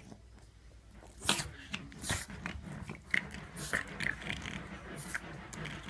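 Boston terrier and Dalmatian play-fighting: irregular jaw snaps and scuffling with short snorts and squeaky sounds, starting about a second in.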